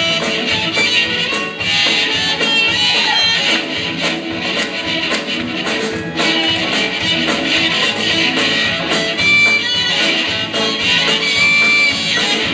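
Rock band playing live: electric guitars and keyboard over drums keeping a steady beat.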